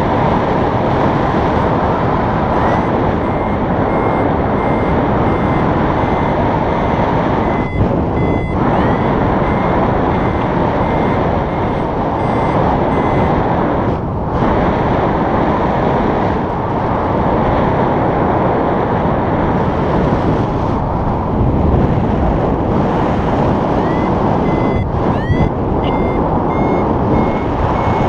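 Wind rushing hard over the microphone in paraglider flight, with a variometer beeping in quick repeated pulses, its pitch sweeping upward now and then. The beeping signals that the glider is climbing in lift. It drops away for several seconds midway and comes back near the end.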